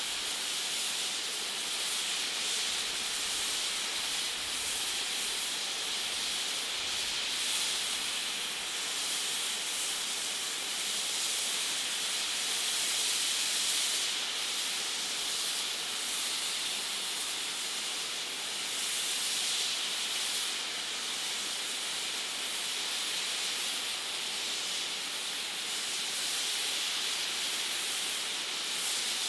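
BR Standard tank steam locomotive standing with its safety valves blowing off: a steady, unbroken hiss of steam.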